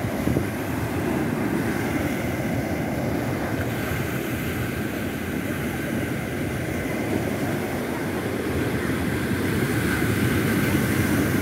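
Sea surf breaking and washing up the sand as a steady rushing noise, with wind rumbling on the microphone, growing a little louder near the end.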